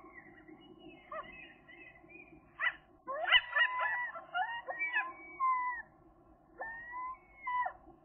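Common gull calling: a series of pitched mewing calls that slide in pitch, busiest and loudest from about three to six seconds in, then two more calls near the end.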